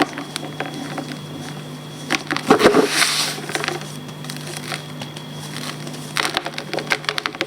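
Reformed gym chalk crumbling: dry crunching and crackling, loudest in a dense crunch a little under halfway through, with another run of crunches near the end.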